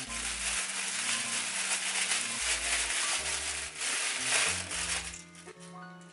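Clear plastic packaging bag crinkling and crackling as it is unwrapped and crumpled by hand, easing off near the end.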